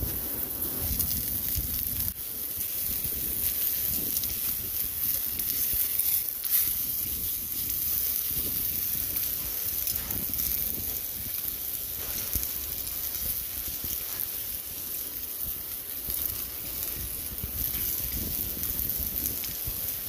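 Steak and onion frying in a pan over a small wood-burning camp stove: a steady sizzle and hiss with fine crackles, over a low uneven rumble.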